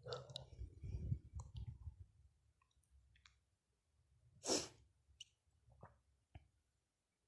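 Faint kitchen handling noises: scattered light clicks and knocks of glasses and utensils, with a low rumble in the first two seconds and one brief swish about four and a half seconds in.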